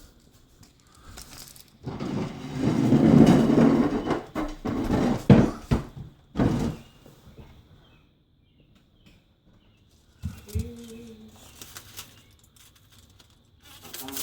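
A loud rustling, scraping handling noise for a couple of seconds, followed by several sharp knocks and thumps.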